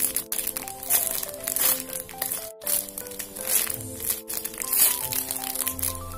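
Clear plastic wrapper crinkling in bursts as a foam squishy toy inside it is squeezed by hand, over background music with held notes.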